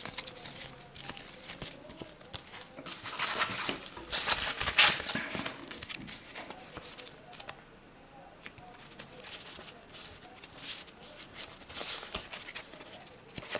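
Selens colour gel filters and their card holders being handled and fanned through: a run of rustling, sliding and small clicks of card and plastic, with a louder rustle about four to five seconds in.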